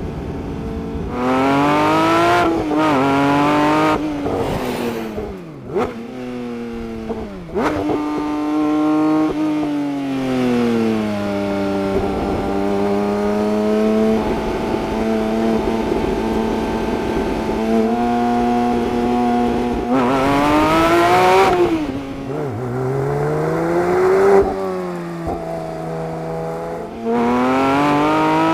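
Porsche 911 S/T's 4.0-litre flat-six petrol engine revving through the gears, its pitch climbing and falling again and again, with a steadier cruising stretch in the middle.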